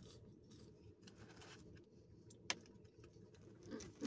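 Faint steady low hum of a car interior, with a single sharp click about two and a half seconds in and a short pitched sound near the end.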